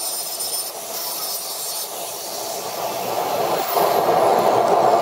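Angle grinder grinding a forged steel axe head held in a vise, its high whine fading out about two seconds in. After that a louder steady rushing noise takes over.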